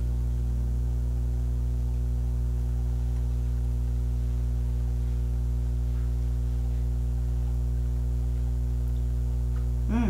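Steady electrical mains hum, a low drone with a stack of higher overtones, holding the same level without change.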